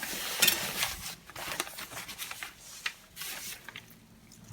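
Newspaper crinkling and rustling under a pike being handled and cut with a fillet knife, with irregular small clicks and scrapes and a louder scrape about half a second in.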